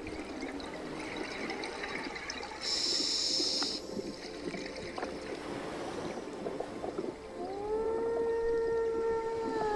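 Scuba diver breathing through a regulator underwater: a short inhalation hiss about three seconds in, then exhaled bubbles crackling and gurgling. Near the end comes a long moaning tone that rises, holds and falls.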